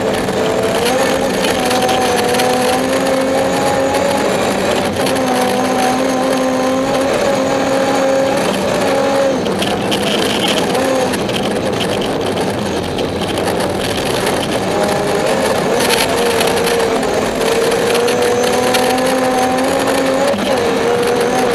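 BMW 325i rally car's straight-six engine running hard at high revs, heard from inside the cabin, over a steady hiss of tyres and road noise. The revs drop briefly and pick up again a little before halfway and once more near the end.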